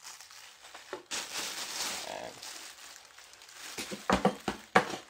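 Plastic wrapping on a metal microphone boom arm crinkling as it is handled. Near the end come several sharp knocks and clatters as something falls.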